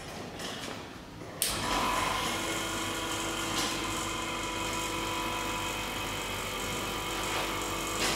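Vacuum pump switching on about a second and a half in and then running steadily, a motor hum with several steady whining tones over a hiss, as it pumps the air out of the bell jar around the oil.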